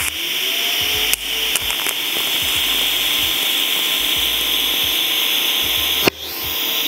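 TIG welding arc from an EWM Pico 160 Cel Puls burning while angle pieces are tacked in, a steady loud hiss. It cuts off with a click about six seconds in and is struck again at once.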